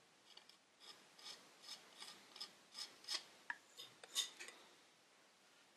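Metal knife blade spreading and scraping filler into a damaged spot on a painted wooden chair part: about a dozen short scraping strokes, the loudest about four seconds in, stopping shortly before the end.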